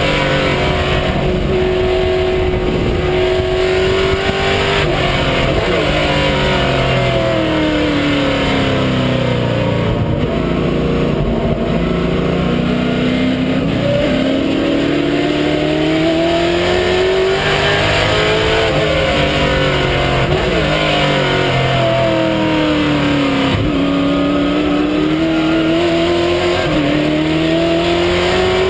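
Onboard sound of a Ford Mustang race car's engine at racing speed. The revs climb steadily, drop sharply a few times at upshifts, and fall away over longer stretches as the car slows for corners, then climb again.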